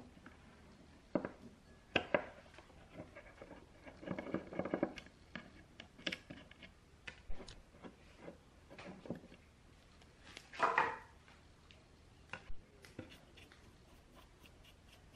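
Hand work on a metal horn tweeter on a wooden workbench: scattered clicks, taps and small knocks as a screwdriver backs out its screws and the parts and screws are set down on the wood, with a longer scraping rustle a little past the middle.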